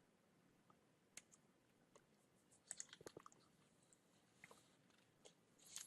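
Near silence with a few faint, short clicks, a small cluster about three seconds in and another near the end.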